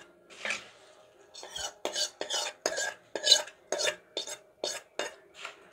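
Steel spoon scraping oily spice tempering out of a stainless-steel kadai onto puffed rice, metal rubbing and tapping on metal. After a quiet first second it turns into a quick run of short scrapes, about three a second.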